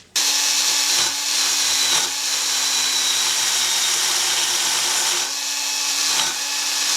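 Small electric power tool grinding a steel part. It starts abruptly and runs steadily, dipping briefly a few times as it is loaded.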